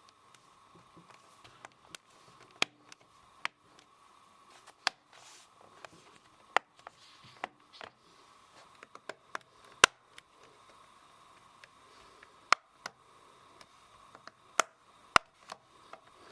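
Plastic clips of a ThinkPad X260's bottom cover snapping into the top case as the cover is pressed down along its edges: about a dozen sharp clicks at irregular intervals.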